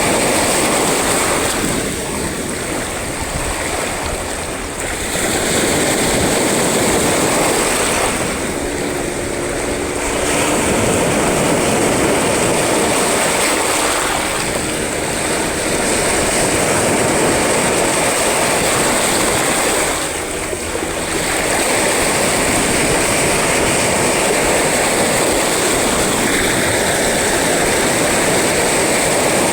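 Sea waves washing and breaking in a continuous rush that swells and eases, dipping briefly a few times.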